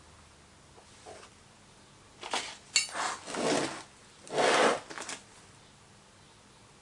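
Small metal moulding tool scraping and cutting through packed greensand to widen the gates of a casting mould, with one sharp metal clink against the flask. There are several short scrapes between about two and five seconds in, and the longest and loudest comes about four and a half seconds in.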